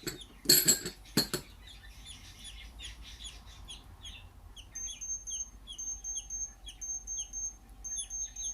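Budgie chicks chirping rapidly, about two or three short falling chirps a second, the repeated begging calls of hungry chicks at feeding time. There are two louder bursts about half a second and a second in, and from about five seconds in a high, thin piping note repeats over the chirps.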